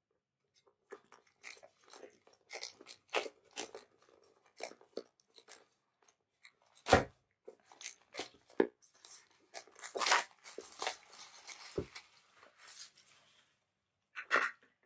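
Packaging being handled and torn open on an oracle card deck-and-book box: irregular crackling and tearing, with a couple of sharper knocks.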